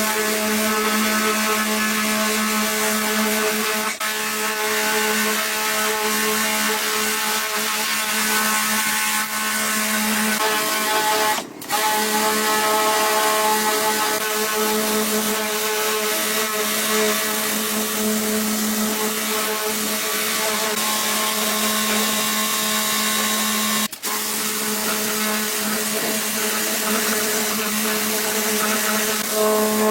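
Electric power tool running steadily with a constant whine, broken by three very short dropouts.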